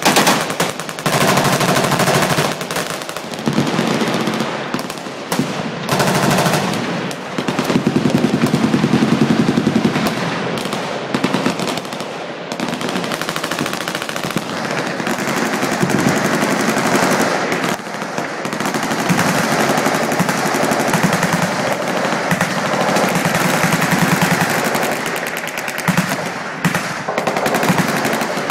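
Several machine guns firing at once on a firing line: continuous overlapping automatic fire with no real pause, swelling and easing slightly.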